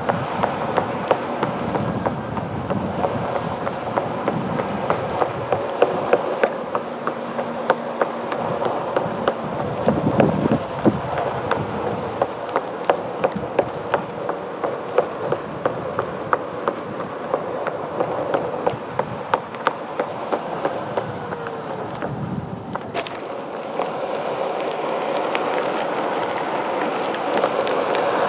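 Onewheel Pint electric board rolling over sidewalk slab joints: its hub motor whines steadily while the tyre clacks over each seam in a regular rhythm, about two a second.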